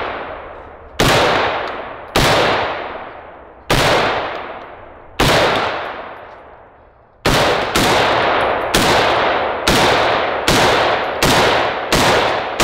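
An FN SCAR 17S 7.62 NATO semi-automatic rifle with a muzzle brake firing single shots, each loud crack trailing off in a long echo. There are four shots about a second and a half apart, then, after a short pause, a quicker string of about nine shots.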